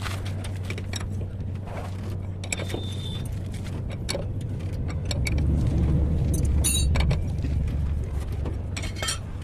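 Diesel truck engine running, its low hum growing louder about midway through and then easing back, with a few light metallic clinks and scrapes over it.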